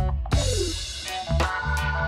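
Background music with a drum kit and bass, cutting in right after the speech ends, with sharp drum hits over steady pitched notes.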